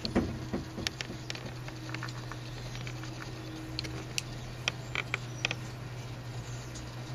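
A steady low hum with scattered small clicks and ticks.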